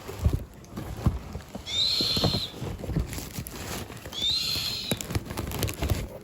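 Rustling and knocking of packaging being handled and opened. Twice, a short high whistle-like call sounds over it, about two and a half seconds apart.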